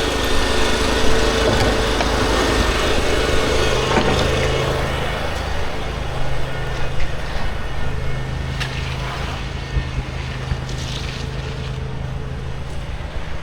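An engine running steadily at a constant speed, with a higher hum that fades out about five seconds in and a few light knocks later.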